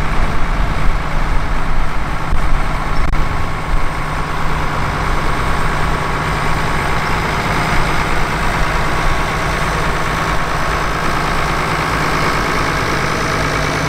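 International Harvester 966 tractor's engine running steadily as the tractor drives slowly past, close up.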